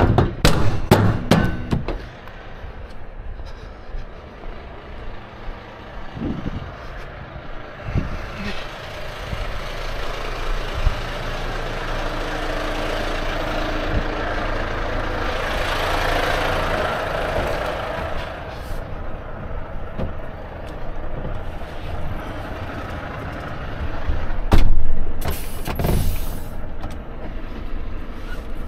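Metal clanks at the rear of a trailer, then a Volvo FH 460 truck's diesel engine running steadily, with two loud knocks near the end.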